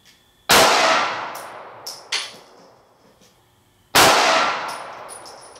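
Two shots from a Glock 19 pistol firing 9mm +P rounds, about three and a half seconds apart, each report trailing off over about a second and a half. A few lighter clinks follow the first shot.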